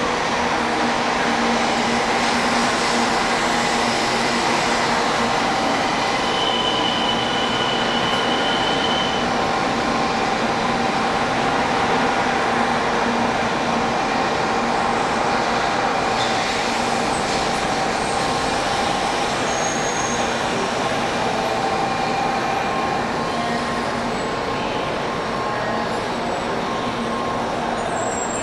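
JR West 700 series Rail Star Shinkansen train moving slowly along the platform. Its running noise is steady, with several held tones over it, and eases off slightly near the end.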